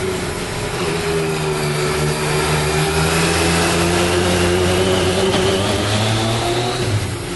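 Yamaha MT-09 motorcycle's three-cylinder engine running as the bike is ridden along the road. The pitch sags slightly, then rises gently, and the sound grows a little quieter near the end as the bike moves off.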